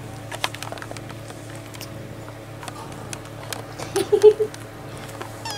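A hungry young kitten gives a short mew about four seconds in, over scattered light clicks and a steady low hum.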